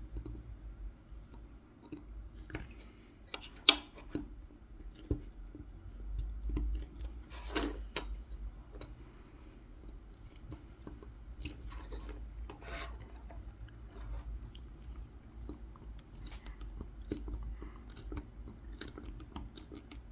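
Tip of a Mora 106 carving knife scoring lines into a wooden spoon in a series of short, irregular scratchy cuts, with a sharper click about three and a half seconds in.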